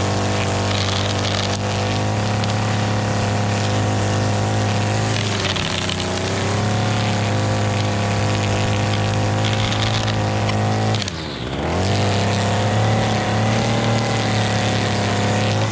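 Gas string trimmer engine running at high revs while edging, its spinning line cutting grass along the concrete sidewalk edge. About eleven seconds in the engine drops in speed briefly, then revs back up.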